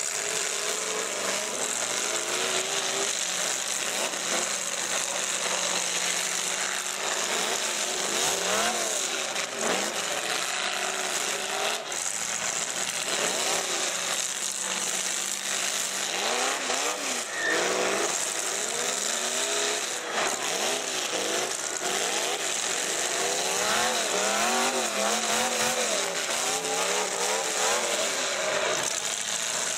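Several full-size demolition derby cars' engines revving hard at once, pitch rising and falling again and again as the cars push and ram each other, over a steady wash of noise.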